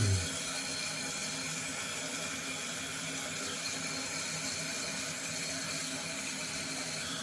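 Kohler Cimarron toilet tank refilling after a flush: water hissing steadily through the fill valve.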